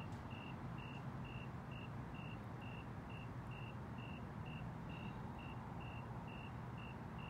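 Electronic beeper sounding short, high, evenly spaced beeps, about two a second, over a steady low hum.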